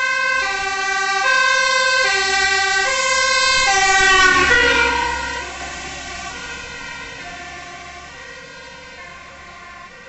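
Fire-service water tanker truck passing with its two-tone siren on, the siren switching between a high and a low tone a little under once a second. About four seconds in, the truck passes close with its diesel engine rumbling and the siren's pitch drops. The siren then fades as the truck drives away.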